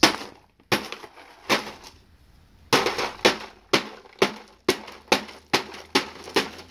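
Hatchet chopping repeatedly into a bag of Goldfish crackers on a concrete floor, each blow a sharp strike with a crunch of crackers and bag. There are a few quick blows, a pause of about a second, then steady blows about two a second.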